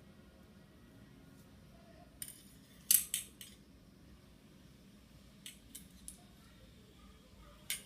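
Short, sharp clicks and light metallic clatter from handling a fixed-blade knife and its cover. There is a cluster of four from about two to three and a half seconds in, the loudest near three seconds. Three lighter clicks follow around five and a half to six seconds, and one more comes near the end.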